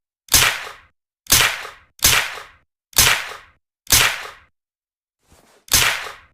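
Suppressed Uzi submachine gun sound effect: single shots, about one a second, six in all, each a sharp crack with a short fading tail. A faint shot comes just before the last one, after a longer gap.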